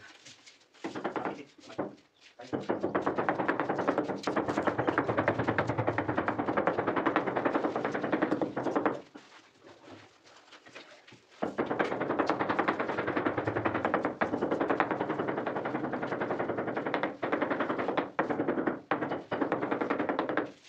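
Rapid, continuous rattling taps on a large floor tile as it is pressed down and bedded into the mortar, in two long runs with a pause of a few seconds in the middle and short breaks near the end.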